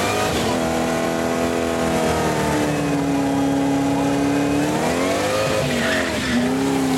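Supercharged 1995 Ford Thunderbird doing a burnout: the engine is held at high revs while the rear tyres spin and screech. The revs sag about five seconds in, pick up again and drop away near the end.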